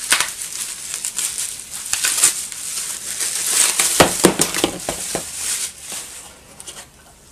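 Plastic bubble wrap crinkling and rustling as it is pulled off a bundle of stepper motors, with a few knocks about four to five seconds in as the motors are set down in a cardboard box.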